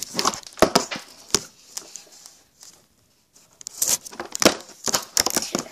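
Close rustling, scraping and clicking, in two spells: one in the first second or so and a denser one in the last two seconds, with a quieter gap between.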